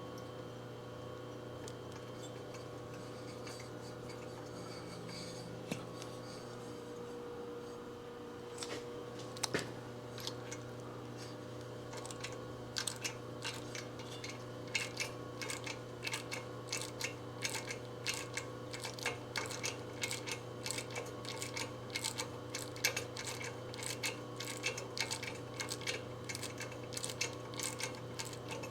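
Light, irregular metal clicks from hand tools working a Heli-coil thread insert into a cylinder head-stud hole. They come several a second from about halfway in, over a steady background hum.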